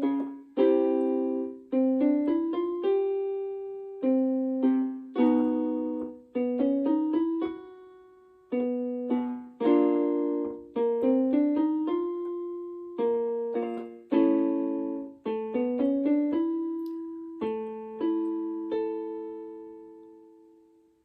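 Piano accompaniment for a vocal exercise: short groups of struck notes and chords that step from pitch to pitch, each dying away. It ends on a held chord that fades out near the end.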